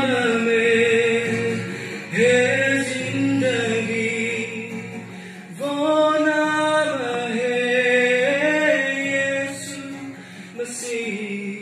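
A woman singing a slow hymn into a microphone, with acoustic guitar accompaniment, played through a PA loudspeaker. The melody moves in long held notes, in phrases with short breaks about two, five and a half and ten and a half seconds in.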